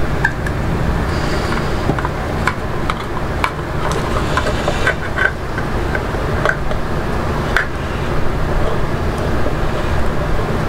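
Scattered light clicks and taps of a plastic catch cup and acrylic enclosure lid being handled, over a steady low background hum.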